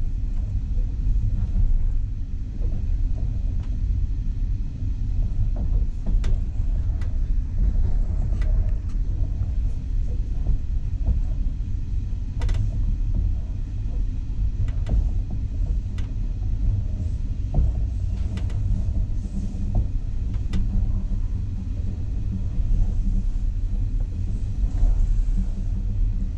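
Russian Railways passenger train running at speed, heard from inside the carriage: a steady low rumble with sharp clicks and knocks at irregular intervals.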